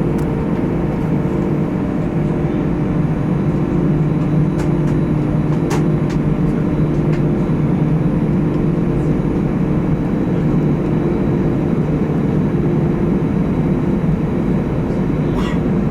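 Airbus A320 jet engines running steadily at low power, heard from inside the cabin as an even hum of several tones over rushing noise, with a faint click about six seconds in.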